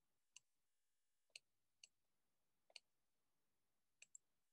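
Faint, sharp clicks from a computer mouse and keyboard, about six spaced irregularly over near silence, made while stepping a setting's value.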